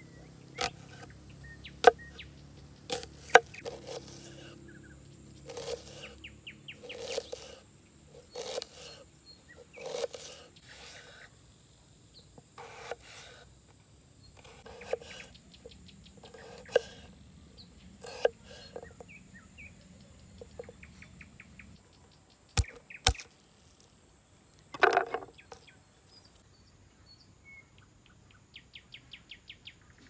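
Kitchen knife cutting onion and then potato on a wooden cutting board: separate crisp slicing strokes, each ending in a knock of the blade on the board, a second or two apart, with a sharp close pair about 23 seconds in. Faint birds and insects chirp behind, with a quick run of chirps near the end.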